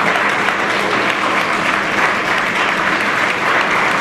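A large indoor audience applauding steadily, a dense, even patter of many hands clapping.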